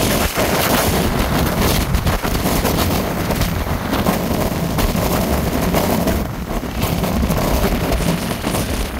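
Jet blast from an airliner's engines at takeoff power: a loud, continuous rushing noise with heavy wind buffeting the microphone.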